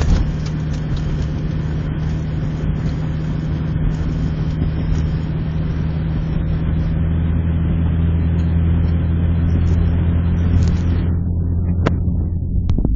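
Honda Civic running on the road, heard from inside the cabin: a steady low engine drone with road and wind noise over it, slowly getting louder, until the higher road noise falls away about eleven seconds in.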